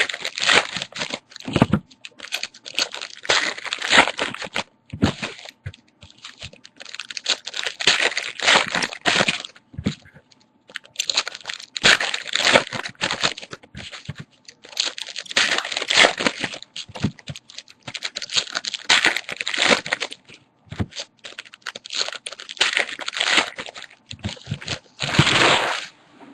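Foil trading-card pack wrappers being torn open and crinkled by hand, in irregular bursts of crackling with short pauses.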